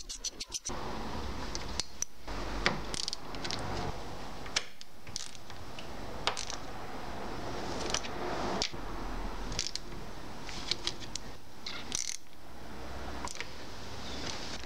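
Quick ratcheting clicks that stop about half a second in, then scattered small metal clinks and scrapes as screws and a hand tool are worked on a mower gearbox's metal casing, over steady background noise.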